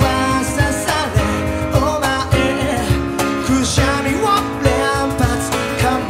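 Live acoustic pop song: a man singing over an acoustic guitar strummed in a steady rhythm.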